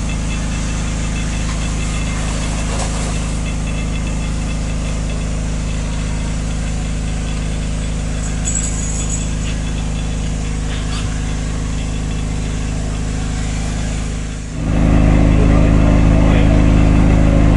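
An engine idling steadily with an even low hum, growing louder and closer about fourteen seconds in.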